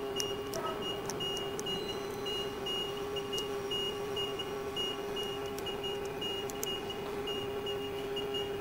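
Steady hum of workshop machinery with a faint high beep repeating about three times a second, and a few light ticks scattered through it.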